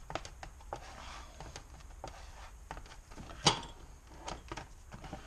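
Plastic spatula scraping and clicking as it mixes body filler with hardener on a mixing board, in short irregular strokes, with one sharp knock about three and a half seconds in.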